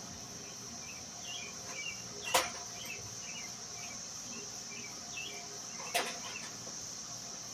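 Two sharp clicks of hand tools on metal as a nut is tightened with an Allen wrench and hook wrench, about three and a half seconds apart. Under them runs a steady high-pitched insect drone with faint chirps.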